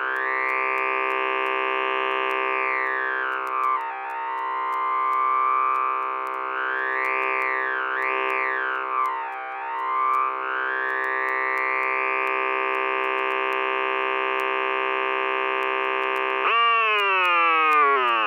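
The Warthog synthesizer app's sawtooth oscillator buzzes at one steady low pitch while its low-pass filter and vowel-formant resonators are swept, so the tone brightens and dulls several times. About sixteen seconds in, the pitch jumps up and then slides steadily down.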